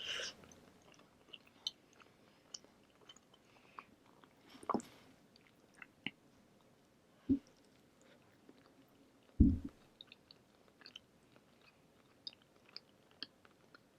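A person chewing food from a burrito-and-chips meal, with many small mouth clicks throughout. Three dull thumps fall about a third, half and two-thirds of the way through, the last the loudest.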